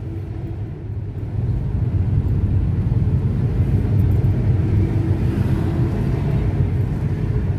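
Low, steady rumble of a car's engine and tyres on the road heard from inside the cabin while driving, growing a little louder about a second and a half in as the car pulls through a junction.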